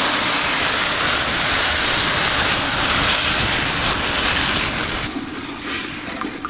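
White sugar poured in a steady stream from a bag into a metal pot of water: a loud, continuous hiss that eases off about five seconds in. Near the end the sugar and water are stirred with a spoon.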